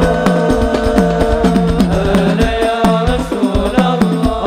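Hadrah ensemble playing a sholawat: frame drums (rebana) and a deep bass drum keep a steady beat under a male voice singing a drawn-out melody. The deep drum strokes drop in pitch as they ring.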